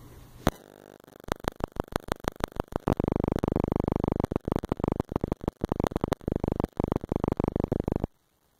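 Stuttering electronic buzz: rapid pulses that thicken into a dense, grating drone, then cut off suddenly near the end.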